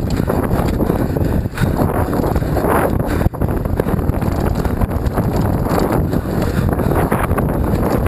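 Wind buffeting a helmet camera's microphone as a downhill mountain bike descends a dirt race track at speed, with the clatter of the bike over rough ground.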